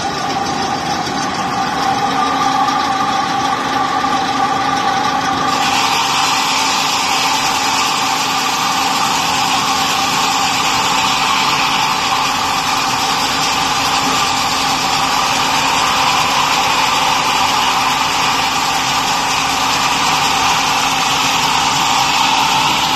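Multi-blade rip saw running steadily with a constant whine. About five seconds in, a loud hiss suddenly joins and holds on.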